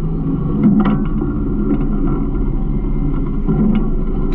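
Garbage truck engine running steadily, with scattered short rattles and clanks from the truck's body and hopper.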